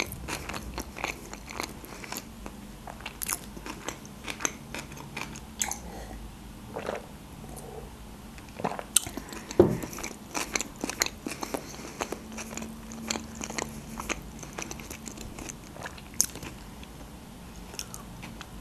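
Close-up chewing of a mouthful of food, with many small sharp mouth clicks and smacks.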